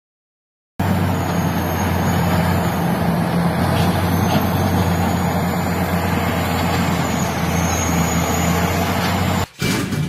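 Large crawler bulldozer's diesel engine running steadily with a low drone as the machine works. It starts just under a second in and cuts off suddenly shortly before the end.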